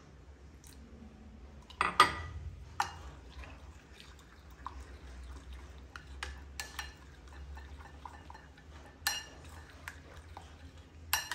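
A spoon stirring thick gram-flour (besan) batter in a bowl: soft wet mixing with a few sharp clinks of the spoon against the bowl, the loudest about two seconds in.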